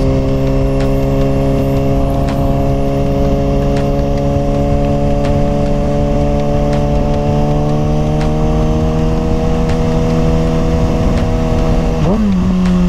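Kawasaki ZX-6R inline-four sport bike engine running under way, its pitch climbing slowly, with wind noise underneath. Near the end the revs blip quickly up and back down.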